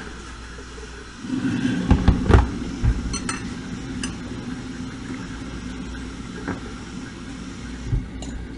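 A few knocks and light clinks of items being handled on a kitchen counter over a steady low hum. The loudest knocks come about two seconds in, followed by sharper clinks and one more knock near the end.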